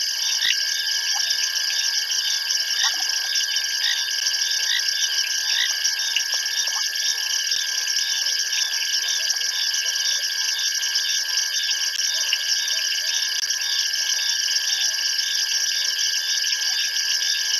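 Night chorus of frogs and insects calling: a steady, high-pitched trilling, with a short repeated note about twice a second.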